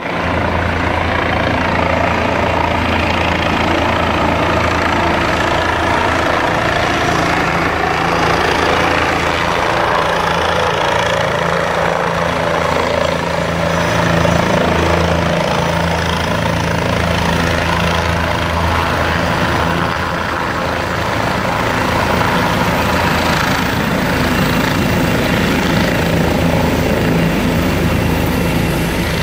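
Air-ambulance helicopter coming down to land and running on the ground, a loud steady rotor and engine noise with a low hum.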